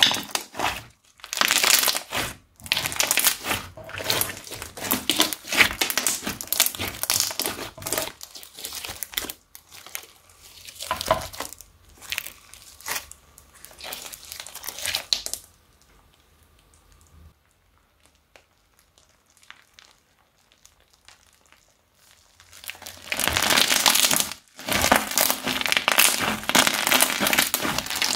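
Blue glossy slime with mixed-in beads being stretched and pressed by hand, giving dense, sticky crackling in bursts. It goes nearly quiet for several seconds past the middle, then crackles steadily and loudly as it is pressed down near the end.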